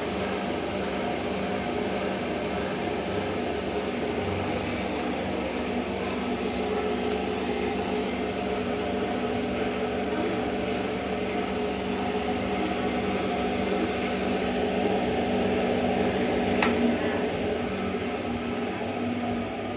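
Electric centrifugal oil-draining spinner running with a steady motor hum and whir. There is a single sharp click about three-quarters of the way through.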